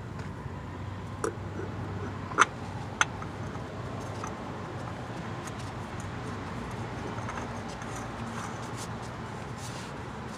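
Three short sharp clicks in the first three seconds as a spin-on oil filter is handled and threaded onto its housing by hand, over a steady low background hum.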